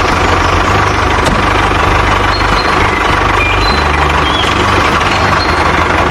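Vehicle engine running steadily and loudly, with no break or change in pitch.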